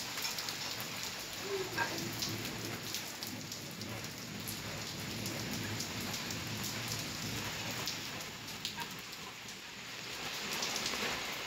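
Heavy rain mixed with hail: a steady hiss of rainfall, dotted with many sharp ticks of drops and hailstones striking hard surfaces.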